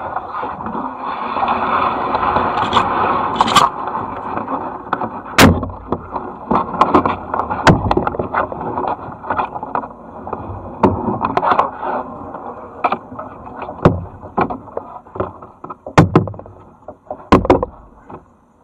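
A kayak and paddles scraping and knocking against branches while being paddled through dense overhanging brush. There is a steady rough scraping with a run of sharp knocks throughout; the loudest come about five and a half seconds in and twice near the end.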